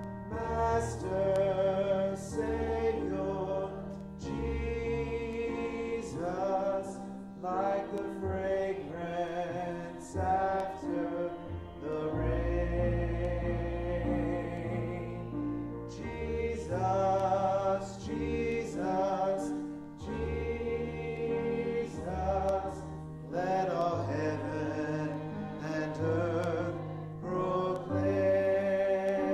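A man singing a gospel hymn solo over an instrumental accompaniment, whose low notes are held for a second or two at a time.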